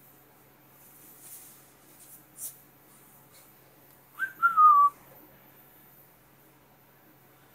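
A person whistling about four seconds in: a quick rising chirp, then a longer note falling in pitch. A few faint soft clicks come before it.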